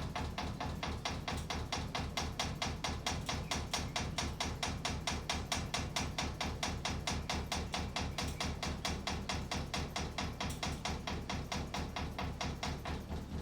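Very wobbly Ventair ceiling fan running, knocking or clicking in a steady rhythm of about four a second over a low motor hum. The knocking is the sign of the fan's heavy wobble.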